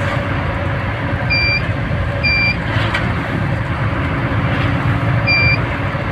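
Motor vehicle running on the road with a steady low drone, and a short high electronic beep sounding twice about a second apart near the start, then again near the end.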